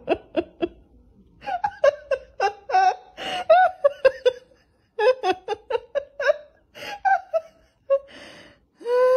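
A person laughing hard in rapid, short, breathy bursts.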